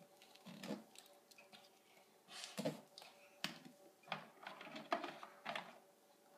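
Faint, scattered clicks, taps and brief rustles of plastic dolls and toys being handled and moved on a wooden floor.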